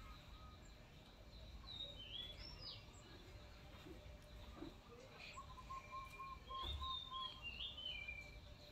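Birds chirping in the background: a few short, high whistled calls about two seconds in and again near the end, with a quick run of short notes a little past halfway, over a low steady background rumble.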